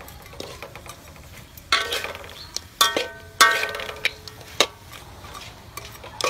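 Metal spatula stirring and scraping food in a metal wok, striking the pan with several short ringing clangs, loudest in the middle of the stretch.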